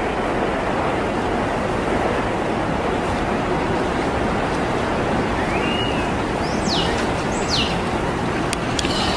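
Steady rushing noise of moving water, with a few short high chirps that sweep sharply downward in the second half.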